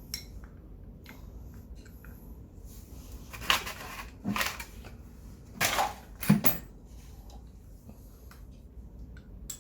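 Four short scraping and clattering sounds of hand work on metal parts, a little over half a second apart in two pairs near the middle, over a low steady background hum.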